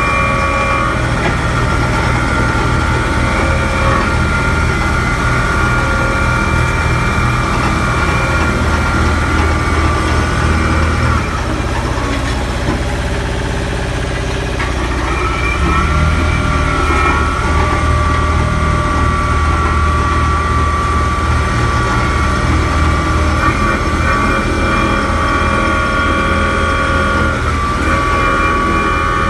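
A Takeuchi TR260 tandem roller's Deutz diesel engine runs steadily while the roller drives on gravel, with a steady high whine above the engine note. About halfway through, the engine drops back for a few seconds, then comes up again.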